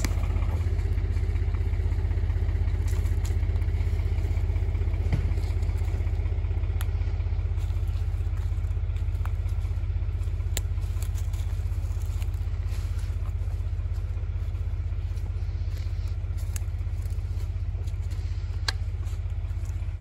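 Farm tractor's diesel engine idling steadily, a low pulsing rumble, with a few faint clicks.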